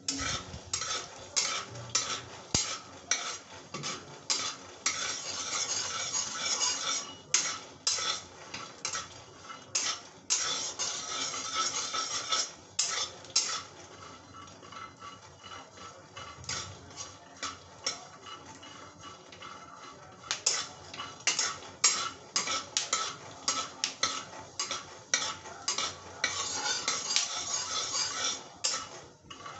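Metal spatula scraping and stirring raw peanuts around a kadhai while roasting them, with the peanuts rattling against the pan in quick, repeated strokes. The stirring is busy at first, eases off for several seconds in the middle, then picks up briskly again near the end.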